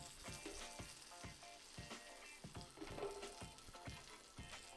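Floured megrim sole frying in butter and sunflower oil in a stainless steel pan: a quiet, steady sizzle.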